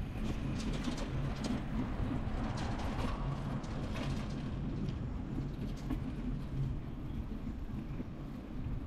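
Steady low rumble of a moving vehicle, with scattered light clicks and rattles over the first six seconds or so.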